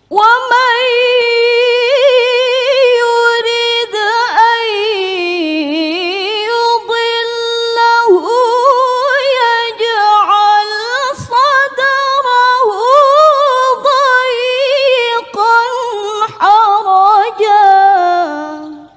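A woman reciting the Quran in melodic tilawah style: one long, unbroken phrase with ornamented runs and wavering pitch, sinking lower as it ends.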